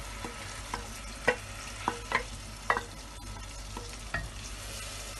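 Ground onion, garlic and ginger paste sizzling in hot mustard oil, with a wooden spoon knocking and scraping against a stainless steel bowl as the paste is emptied into the pot: a string of sharp taps through the first three seconds and one more about four seconds in.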